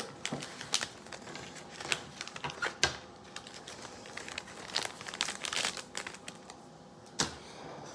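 Crinkling and rustling of foil booster-pack wrappers and card packaging being handled, in irregular short crackles with scattered light clicks.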